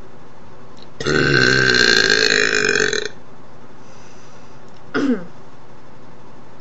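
A person belching: one long, loud burp of about two seconds starting a second in, then near five seconds a short sound falling in pitch.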